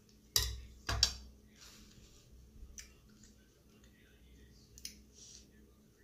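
Metal cutlery clinking down onto a dinner plate: two sharp knocks about half a second and a second in. These are followed by quieter light clicks and soft handling sounds.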